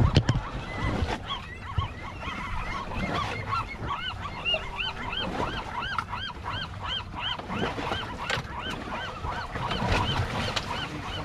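A flock of gulls calling, many short rising-and-falling cries a few a second, over wind and water noise. A few loud knocks right at the start.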